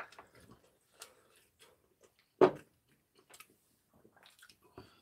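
Quiet eating at a table: soft chewing of chewy sujebi dough with small clicks of chopsticks and ceramic bowls, and one louder short sound about two and a half seconds in.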